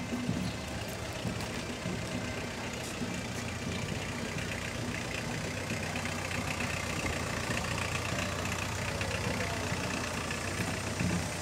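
Slow-moving vehicles passing close: a van's engine, then a small tractor's engine running steadily at low speed as it pulls a trailer float.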